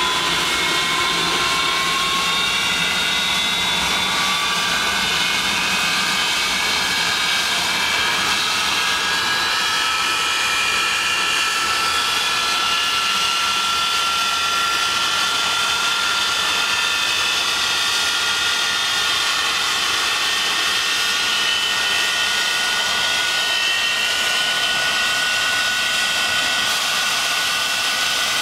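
English Electric Lightning's twin Rolls-Royce Avon jet engines running on the ground: a steady jet roar with a high whine that climbs slowly in pitch over the first half, then holds steady.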